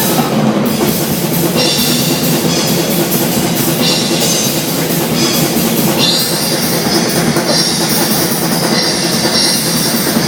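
Heavy metal band playing live, loud and dense, with a drum kit driving it; the recording is thin, with almost no deep bass. The texture of the music changes about six seconds in.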